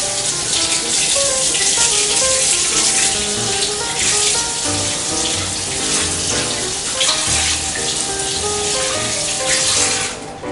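Water running hard from a kitchen tap, a steady rushing hiss that cuts off suddenly near the end, with background music playing over it.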